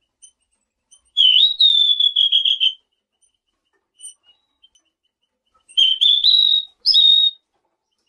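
Selendang biru songbird singing two clear whistled phrases. The first comes about a second in: a dipping note followed by a quick run of repeated notes. The second, near the end, is a rising string of notes that ends on a held whistle, with faint chips between the phrases.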